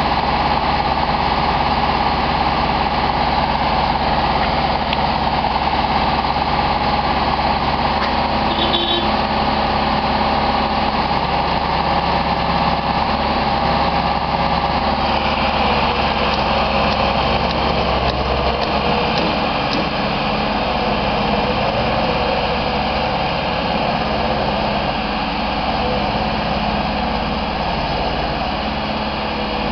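Genie S-80 telescopic boom lift's engine running steadily while the boom and platform are worked, its note shifting a little about halfway through.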